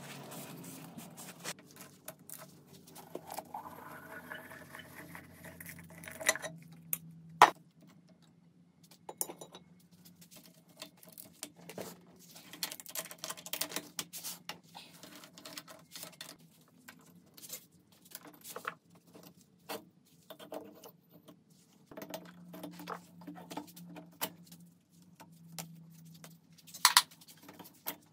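Metal engine parts and hand tools being handled on a workbench: scattered clicks, clinks and knocks, with a loud knock about seven seconds in and another near the end. A brief rising whine sounds around four to six seconds in.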